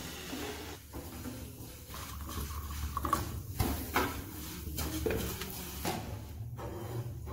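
A stainless-steel electric kettle of freshly heated water and a steel cup being handled: scattered knocks and clinks of metal, over a low steady hum.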